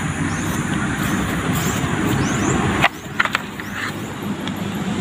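A motor vehicle's engine running steadily, with birds chirping, cut off abruptly about three seconds in; after that, a few sharp knocks.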